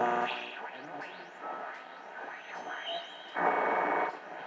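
Speaker of a 1931 Philco model 71 cathedral radio as it is tuned across stations: static and whistles sliding up and down in pitch, with brief snatches of broadcasts, and a louder burst of sound lasting just under a second near the end.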